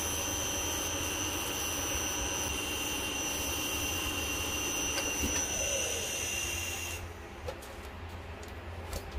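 Wood lathe running with a steady high whine while an abrasive pad rubs against the spinning ebony piece to polish it. About seven seconds in the lathe is switched off and the whine stops suddenly, leaving a quieter hiss.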